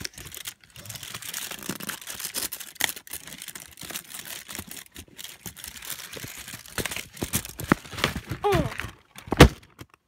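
Foil and paper wrappers crinkling and rustling as they are handled, with many small clicks. A short falling vocal sound about eight seconds in, then a loud knock near the end.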